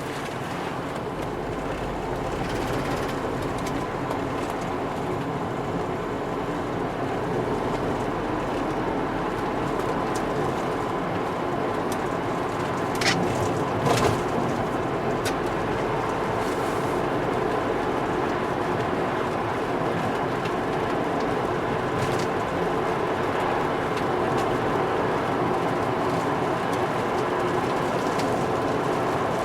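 Volvo V70 T5 being driven: its turbocharged five-cylinder engine runs steadily under road and tyre noise. There are a few short clicks about 13 and 14 seconds in.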